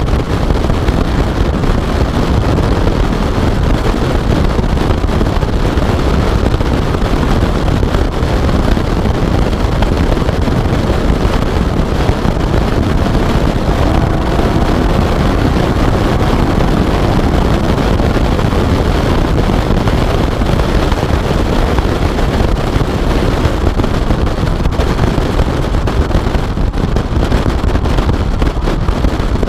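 Car driving at speed, with heavy wind buffeting on the externally mounted camera microphone over a steady mix of engine and road noise.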